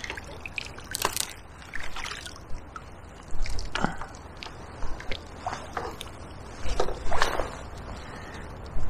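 Irregular small splashes, sloshes and drips as a hooked dace is brought in from a small river, with the river trickling underneath.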